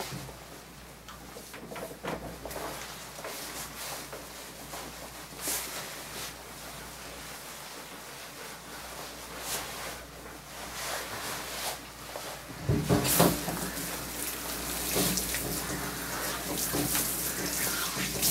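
A wet German Shepherd's soapy coat being scrubbed by hand in a grooming tub: soft rubbing and squelching of lather with scattered small knocks, getting louder and busier about two-thirds of the way through.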